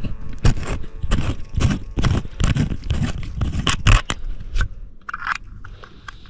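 Footsteps crunching and scraping on dry ground, about two steps a second, fainter near the end.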